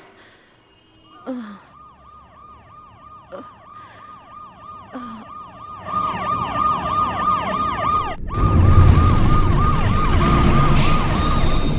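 Ambulance siren with a rapid, repeating up-and-down wail, growing louder. A little after eight seconds it breaks off for an instant, then carries on over a loud low rumble of road noise.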